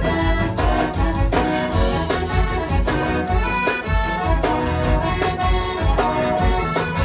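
Live zydeco band playing: accordion over electric bass and a drum kit, with a steady beat.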